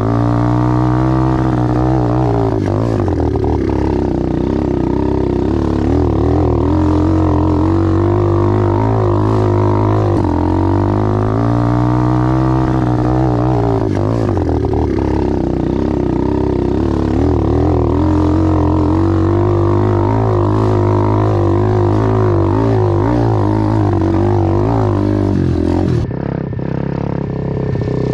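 Apollo pit bike engine running hard on a steep hill climb, its pitch rising and falling in repeated waves as it revs up and down. Near the end the sound abruptly becomes duller and a little quieter.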